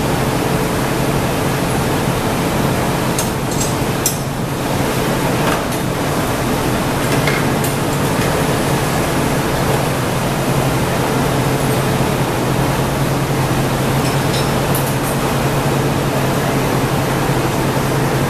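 Steady rushing noise with a low hum from a glassblowing hot shop's running equipment: the gas-fired glory hole and the floor fans. A few faint clicks of tools sound along the way.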